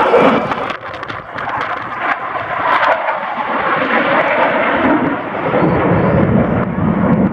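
F-16 Fighting Falcon jet engines heard from the ground, a loud rushing noise with some crackle in the first few seconds and a deeper rumble building near the end.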